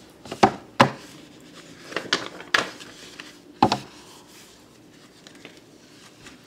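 A few sharp knocks and clicks, about five in the first four seconds, over faint room tone in a small room.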